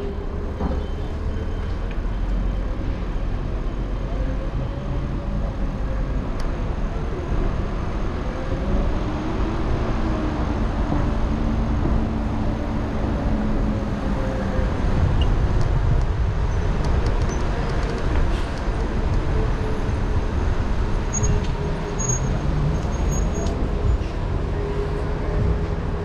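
City street traffic heard from a moving electric scooter: a steady low rumble of wind and road noise, with the engine notes of passing vehicles rising and falling.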